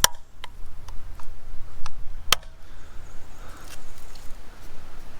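Plastic center cap being pressed into an alloy car wheel: two sharp plastic snaps about two and a half seconds apart, with lighter clicks between as it is seated.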